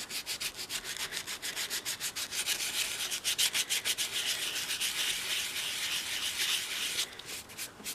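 Hand sanding of dried spackling filler on a doll's head: abrasive rubbing in quick, even back-and-forth strokes, several a second, that stop about seven seconds in apart from a few last strokes.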